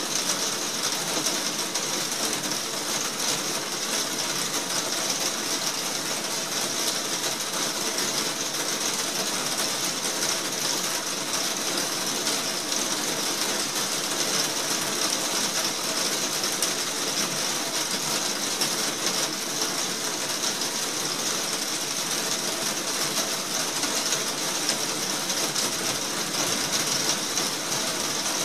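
Heavy rain falling steadily on a glazed conservatory roof overhead, heard from inside. It is a dense, even hiss of countless fine drop ticks that holds at the same level throughout.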